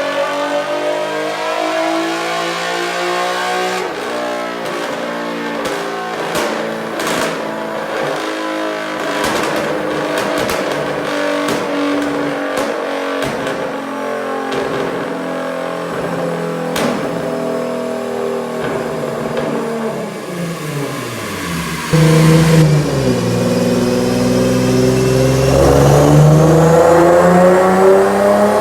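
Infiniti Q50's VQ37 V6 running through an aftermarket cat-back exhaust, revving with its pitch rising and falling, with scattered clicks. About 22 s in it turns suddenly louder and deeper, then climbs steadily in revs near the end.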